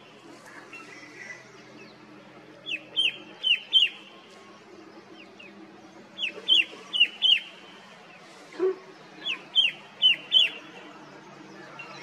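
Himalayan shrike-babbler (red-winged shrike-babbler) singing its loud hill call: three phrases, each of four sharp, quickly repeated notes that slur downward, a few seconds apart.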